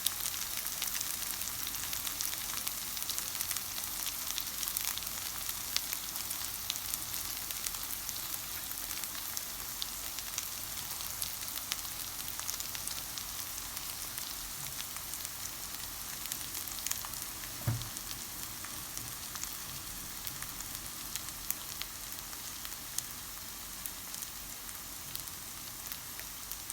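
Salmon, chive and tofu jeon sizzling in oil in a frying pan: a steady hiss with fine crackling spatters. One short low knock about two-thirds of the way through.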